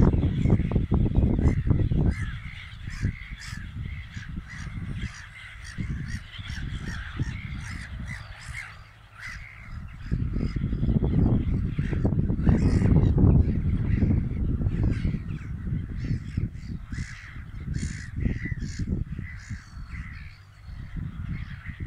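A large flock of gulls calling continuously, many short overlapping cries at once, as they feed along a fresh plough furrow. Under the calls runs a gusty low rumble, loudest at the start and again from about ten to sixteen seconds in.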